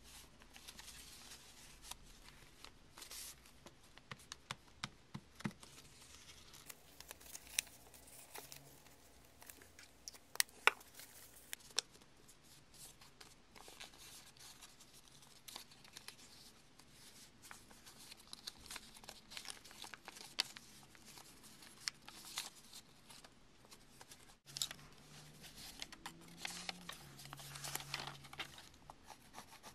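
Paper crinkling and rustling with many small clicks and taps as a folded paper tri-hexaflexagon is handled and creased by hand. The sound breaks off for an instant about three-quarters of the way through.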